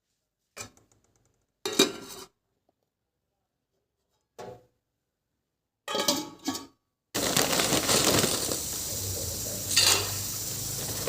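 Kitchen utensils and pots handled in a few short separate clinks and clatters, then about seven seconds in a steady hiss starts and keeps on.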